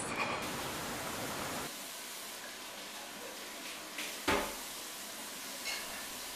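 Steady quiet background hiss that drops slightly about two seconds in, with one sharp knock a little past four seconds in and a fainter click near the end.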